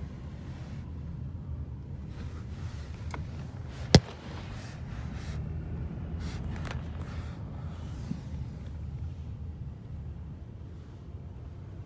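Steady low rumble of vehicles, with one sharp click about four seconds in.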